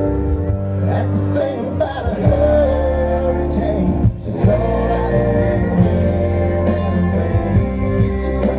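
Live country band playing loud, with guitars, bass and drums, and a man singing the lead vocal over it, heard through the crowd at an outdoor show.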